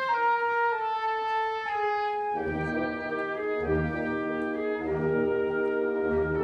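Wind band playing. A single melodic line of held notes steps downward, then about two and a half seconds in the full band enters with sustained chords over a low pulse a little more often than once a second.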